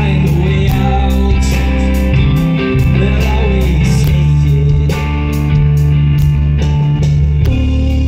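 A live rock band playing a song at full volume: electric guitars and bass holding sustained notes over steady drums and cymbal hits.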